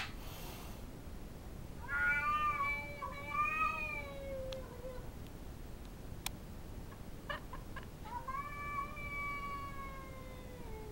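Calico house cat yowling territorially at another cat outside: two long, wavering, drawn-out yowls, each sliding down in pitch at the end, the first about two seconds in and the second about eight seconds in. A single sharp click falls between them.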